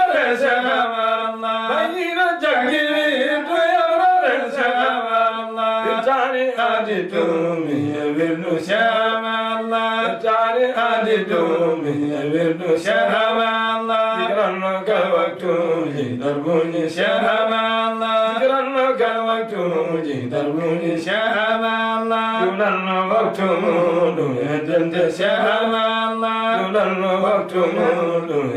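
Two men chanting a qasida, an Islamic devotional poem, unaccompanied: a long, melismatic vocal line that swoops up and down over a steady held low note, with no pauses.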